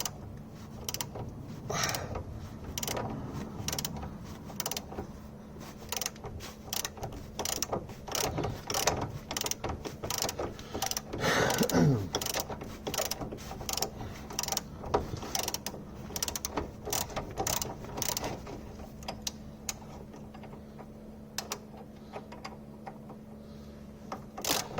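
Socket ratchet clicking in quick uneven runs as it is worked back and forth to undo a nut and bolt on a car's front hub, thinning out near the end. About halfway there is a brief falling squeak.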